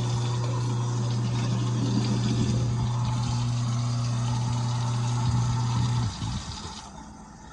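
InSinkErator Badger 15SS garbage disposal running steadily with tap water flowing, grinding leftover ramen noodles. The motor hum cuts off about six seconds in and winds down, and the running water stops about a second later.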